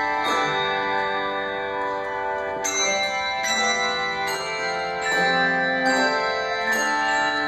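Handbell choir ringing a piece. Chords of handbells are struck every second or two, each left ringing and overlapping the next.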